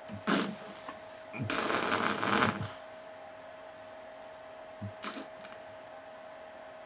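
A man's heavy breathing through an open mouth: a short gasp, then a loud breath out lasting about a second, and a faint double breath near the end. A faint steady hum runs underneath.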